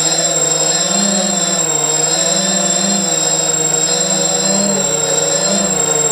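The four brushless motors and propellers of a ZMR 250 racing quadcopter buzz in flight. Their pitch swells up and down every second or so as the throttle changes, over a constant high whine.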